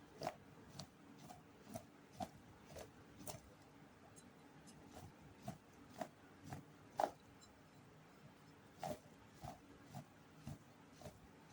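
Boiled potato pieces being mixed with corn flour in a bowl: irregular soft knocks and clicks, one or two a second, some with a brief ringing note.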